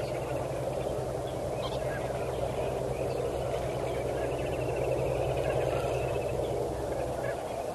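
Steady outdoor background noise with a low hum. Faint bird chirps come and go over it, and a short trill of rapid notes runs through the middle.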